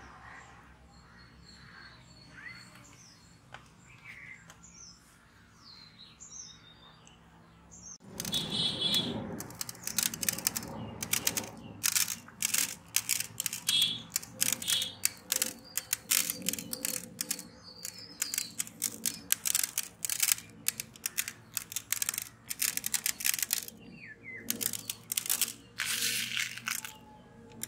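Birds chirping faintly, then from about eight seconds in a dense, irregular run of clicks and ticks: hard candy sprinkles scattered by hand, pattering onto chocolate-glazed donuts and a metal tray.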